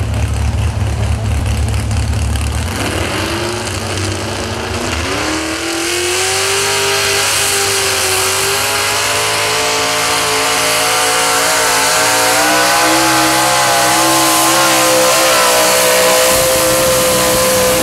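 Alcohol-injected small-block Chevy V8 of a 4x4 square-body super stock pulling truck: a low rumble, then about three seconds in the revs climb sharply as it launches the sled. It runs loud at high revs under load, the pitch creeping slowly upward as the pull goes on.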